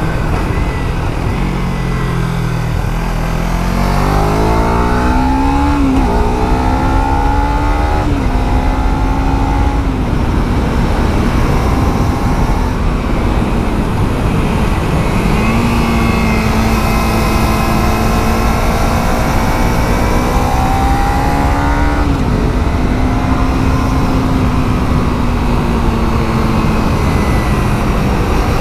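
Kawasaki Z300's parallel-twin engine on its stock exhaust, pulling up through the gears with the note climbing and dropping back at each shift over the first several seconds, then holding fairly steady revs while cruising, with a brief dip in the middle. Wind rushes underneath.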